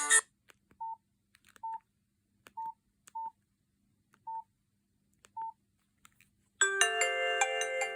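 Nokia 5220 XpressMusic mobile phone: a ringtone cuts off right at the start, then six short, same-pitched keypad beeps sound at uneven intervals as keys are pressed. About six and a half seconds in, the next preloaded ringtone starts, a melody of sustained chiming notes.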